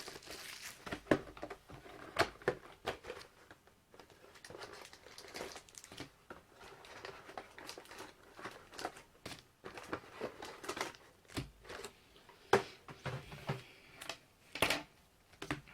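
Trading-card packaging being handled: plastic wrap and card packs crinkling in irregular crackles, with a few louder crinkles near the end.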